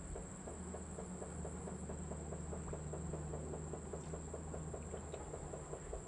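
Outdoor ambience: a steady high-pitched insect drone over a low hum, with a fast regular pulsing of about eight beats a second.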